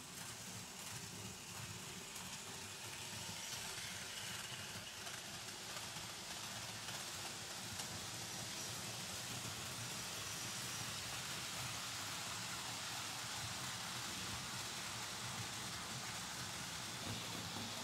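Märklin H0 model steam locomotives and coaches running on metal Märklin M-track: a steady rolling rumble and hiss of wheels on the stamped-metal track, with a low hum underneath, growing slowly louder.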